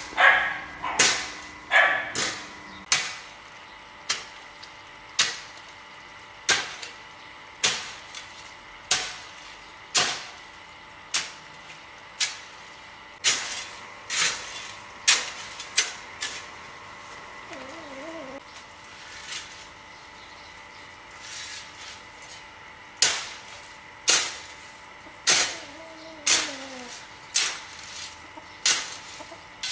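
A steady series of sharp knocks, about one every second, each ringing off briefly, with a faint warbling call twice in the middle.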